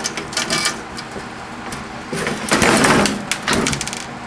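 Metal and plastic microwave oven parts clattering and scraping as they are handled and pulled during disassembly: a few light clicks, then a dense rattle about two seconds in that lasts about a second and a half.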